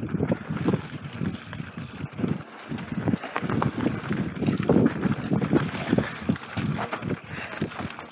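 Mountain bike descending a dirt singletrack at speed: tyres rolling over dirt and roots while the bike rattles and clatters in quick irregular knocks, with wind buffeting the microphone.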